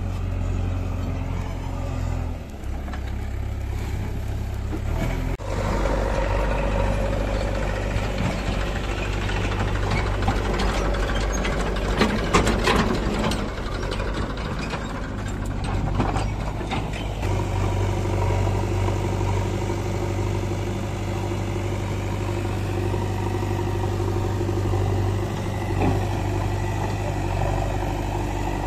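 Diesel engines of a JCB 3DX backhoe loader and a Massey Ferguson tractor running steadily at a low rumble, with a louder stretch of rattling and clatter from about ten to sixteen seconds in.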